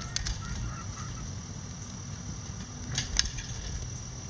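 Bantam chickens pecking at a hanging cabbage and corn treat: sharp pecking taps just after the start and a louder pair about three seconds in, with a short, soft chicken call near the start.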